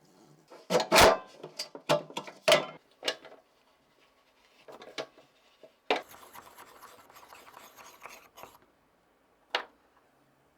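Workshop handwork on small parts: a run of sharp knocks and clatter, then a couple of seconds of scraping or rubbing, and one more click near the end.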